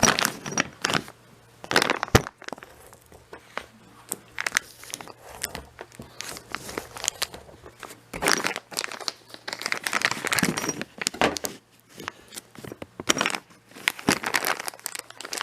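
Packaging being torn and crumpled by hand as it is worked open, in irregular crinkling, crackling bursts with sharp clicks.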